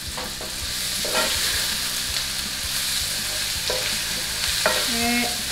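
Chopped vegetables and tomato paste sizzling in a hot frying pan with a steady frying hiss, while a wooden spatula stirs them, giving short low knocks against the pan.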